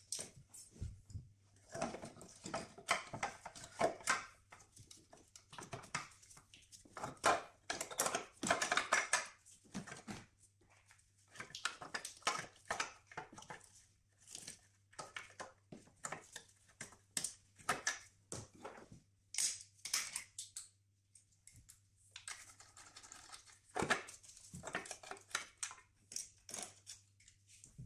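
Hand work on engine-bay parts: irregular clicks, knocks, rattles and scraping of plastic and metal components being handled and fitted, in bursts with short pauses.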